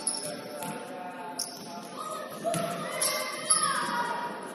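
Basketballs bouncing on a hardwood gym floor, several sharp bounces about a second apart, with voices echoing around the large hall.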